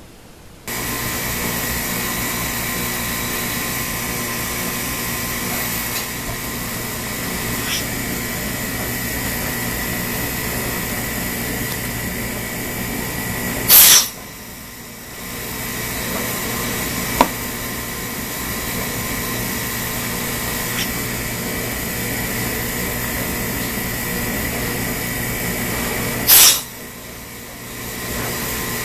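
Harbor Freight electric vacuum pump starting up about a second in, then running steadily with a constant whine, drawing vacuum on a CNC router vacuum fixture. Twice, about halfway and near the end, there is a brief loud burst, after which the pump's sound dips and builds back over a second or two.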